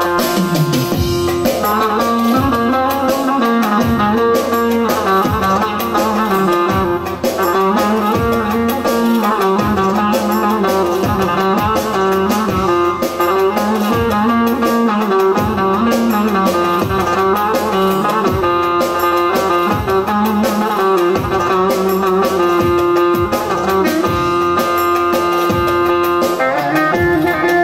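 Bağlama (long-necked Turkish saz) playing an instrumental folk-song introduction over a steady drum beat, with no voice.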